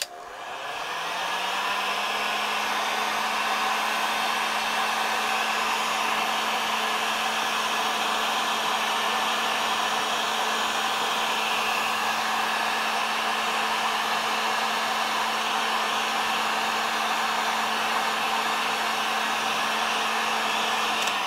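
Handheld electric heat gun switched on with a click, its fan motor spinning up over about two seconds, then running steadily with an even hum and a rush of hot air as it shrinks heat-shrink tubing over wire splices. It is switched off right at the end.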